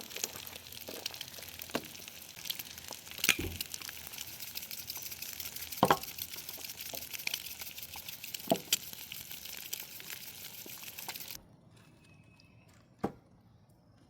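Food frying in a pan, a steady sizzle with scattered sharp pops and crackles. The sizzle cuts off suddenly about eleven seconds in, leaving near quiet with a single click.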